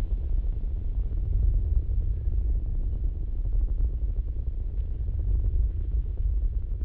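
Deep, steady cinematic rumble, a sound-design drone, with faint crackles on top.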